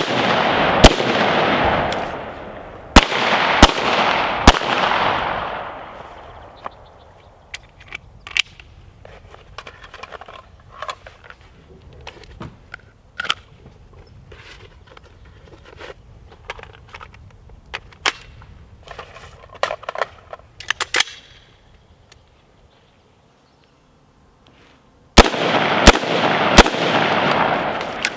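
Rifle and pistol shots fired in quick strings during a rifle-to-pistol transition drill, each crack followed by a long echoing tail. Two shots come at the start and three more a few seconds later. Then come scattered quieter clicks and rattles of gun handling, a short gap, and a fresh string of four shots near the end.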